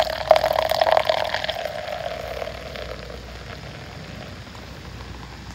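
Beer poured from a can into a stainless steel mug, foaming up as it fills. The pour starts suddenly, is loudest in the first second or two, then softens and fades.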